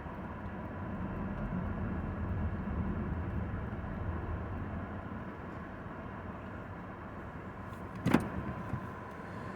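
Steady road and engine rumble of a moving vehicle heard from inside the cabin, with one sharp click about eight seconds in.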